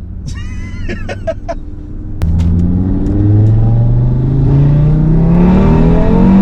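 Audi RS3's tuned 2.5-litre five-cylinder turbo engine (DAZA) going to full throttle about two seconds in, its note climbing steadily in pitch through the rev range, heard through a Milltek downpipe and the stock valved RS exhaust.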